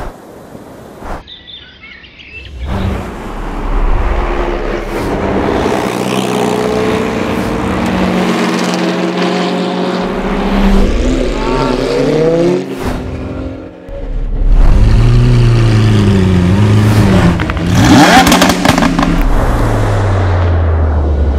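Sports car engines through aftermarket FI Exhaust systems, revving and accelerating through the gears, the exhaust note rising and falling in pitch. The engines set in after a quiet first few seconds and are loudest from about 15 seconds in.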